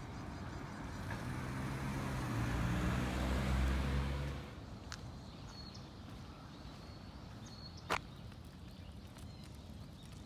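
A motor vehicle's engine grows louder over the first four seconds and then cuts off suddenly. After that there is quiet open-air background with a few sharp taps of deer hooves on gravel, the loudest about eight seconds in.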